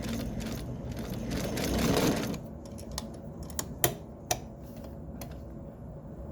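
Kenmore 117.552 sewing machine running, stitching with an even rapid rhythm for about two and a half seconds and then stopping. A few separate sharp clicks follow.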